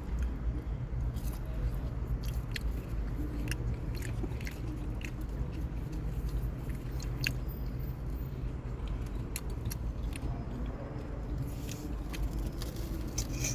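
Close-up chewing and biting of fast food, with scattered small wet mouth clicks, over a steady low rumble.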